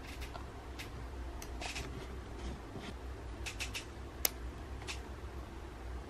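Small handling noises of craft supplies and paper on a cutting mat: scattered light clicks and rustles, with one sharper click a little past four seconds in, over a low steady hum.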